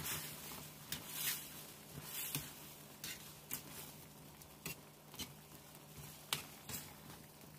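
A metal spoon stirring pumpkin chunks into a simmering coconut-milk curry in a metal pan: faint, irregular clicks and scrapes of the spoon against the pan and the pieces.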